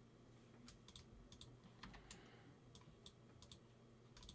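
Faint, irregular clicks of a computer mouse and keyboard, about a dozen over a few seconds, over low room hum.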